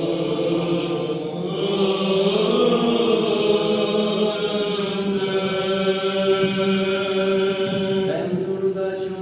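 Orthodox church chant: voices singing long, drawn-out notes at a steady level, the pitch changing only now and then.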